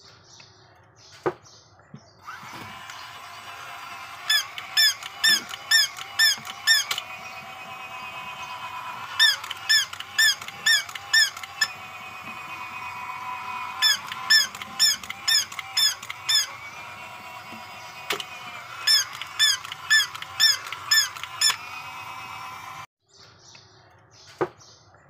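Battery-operated toy cat running: a steady whir from its motor under four runs of short, squeaky electronic calls from its sound chip, about two a second. The whole toy cuts off suddenly about 23 seconds in, followed by a single click.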